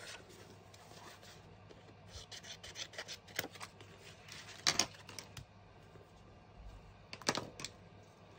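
Cardstock offcuts being handled and laid down on a craft mat: scattered light rustles and taps, with two louder taps, one about halfway and one near the end.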